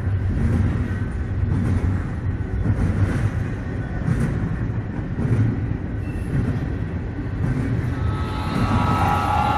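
Model trains running on layout track, a steady low rumble. Near the end a multi-note horn begins sounding and holds.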